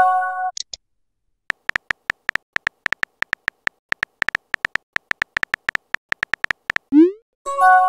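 Text-messaging app sound effects. A short chord chime with a high sparkle as a message appears, then a steady run of quick, identical high keyboard-typing pips, about six a second, as a reply is typed. Near the end comes a rising swoop as it is sent, followed by another chime.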